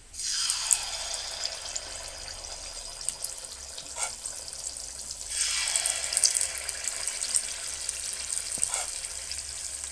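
Paniyaram batter hitting hot oil in the cups of a paniyaram pan and sizzling, in two bursts: one at the start and another about five seconds in, each a loud frying hiss that slowly settles.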